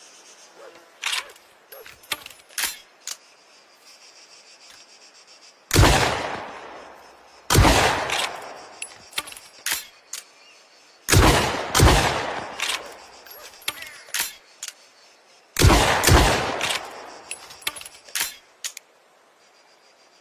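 Lupara, a sawed-off double-barrel shotgun, firing six loud shots with an echoing tail, mostly in pairs. Between the pairs come short quieter clicks and clacks.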